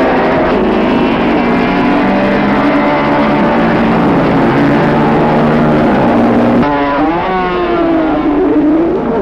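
Racing motorcycle engines at high revs, several pitches sounding at once. About two-thirds of the way through the sound changes abruptly, and one engine's pitch falls and then rises again, as when a bike passes or comes off and back onto the throttle.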